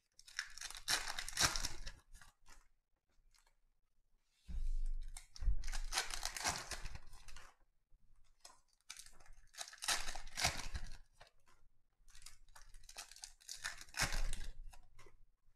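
Foil trading-card pack wrappers being torn open and crinkled, in four or five crackling bursts with short quiet gaps between.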